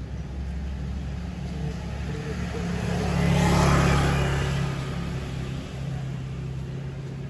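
Motor scooter passing close by: its engine hum and road noise swell to a peak about halfway through, then fade away.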